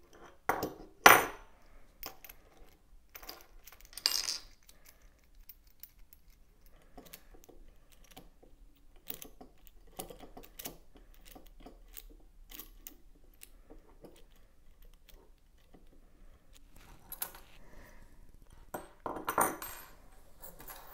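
Small metal hardware (screws, washers and turnbuckle parts) clicking and clinking as it is handled and fitted onto aluminum rods. Light irregular taps run throughout, with louder clinks about a second in and about four seconds in, and a short clatter near the end.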